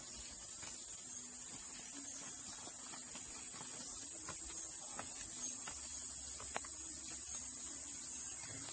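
Steady high-pitched drone of an insect chorus from the surrounding forest trees, with faint scuffing footsteps on gravel and stone steps.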